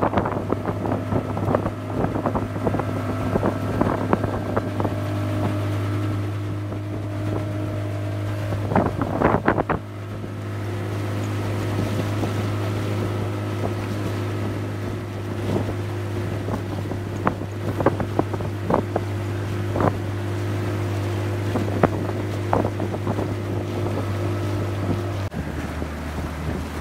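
Small boat's outboard motor running steadily underway, with water splashing against the hull now and then and wind on the microphone. About 25 seconds in, the engine note drops lower as the throttle is eased.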